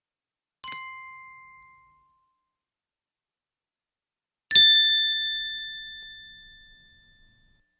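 Two small bells each struck once, different pitches: a short ding about half a second in, then a louder, higher ding about four and a half seconds in that rings out slowly.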